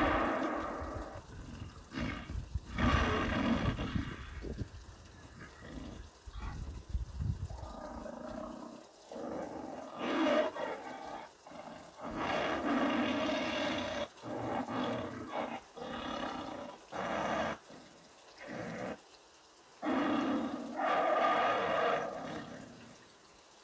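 A recorded tiger roar played through the loudspeaker of a fixed wildlife-deterrent unit: a series of roars, each a second or two long, with short pauses between them.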